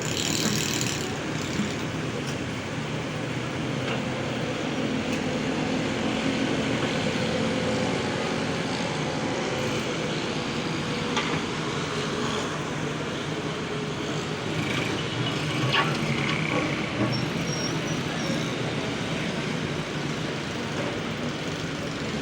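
Volvo excavator's diesel engine running steadily as it works. There is a brief hiss in the first second and a few sharp knocks later on.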